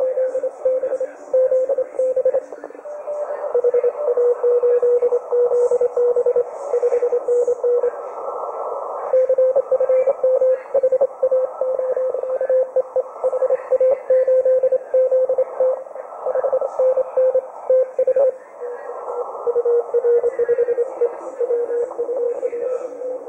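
Morse code (CW) received on the 40-metre (7 MHz) amateur band through a Perseus SDR receiver: a tone near 500 Hz keyed in fast dots and dashes, with fainter stations sending at lower pitches underneath and a steady band hiss. The pitch of the main signal steps slightly a few times as different stations come through.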